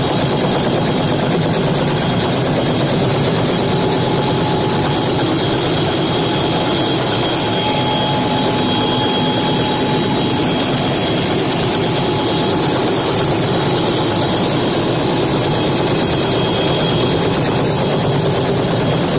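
Small helicopter running on the ground, close by: a loud, steady engine and rotor noise with a high, steady whine.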